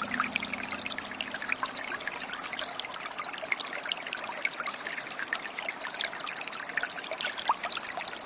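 Water trickling and babbling steadily, with many small bright splashes.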